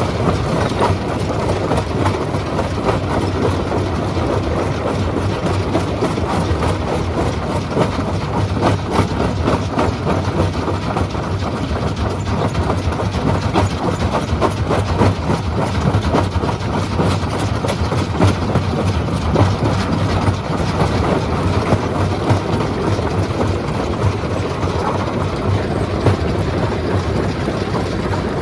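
Stone-crushing machine running, with a steady low hum under a constant dense clatter of rock being broken.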